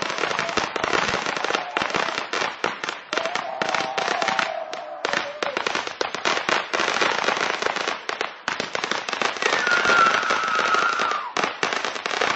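Ground fountain fireworks spraying sparks, with dense, continuous crackling and hiss.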